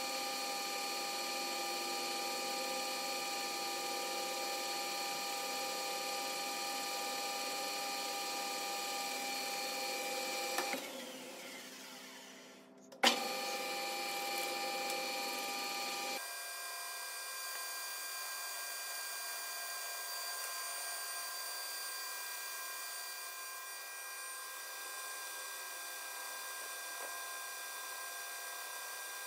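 Metal lathe running while its tool faces an aluminium plate, a steady machine whine made of several tones. About eleven seconds in the sound sags away, a sharp click follows, and the running resumes; a few seconds later the pitch of the whine changes.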